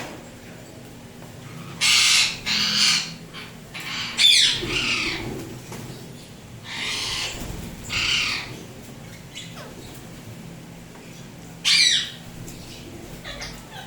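Indian ringneck parrot squawking: a series of loud, harsh calls in short bunches, one with a quick falling pitch.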